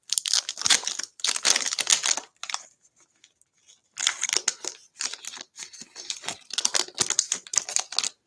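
Baseball card pack's crinkly wrapper being handled and torn open, in two spells of crackling with a quiet gap of about a second and a half between them.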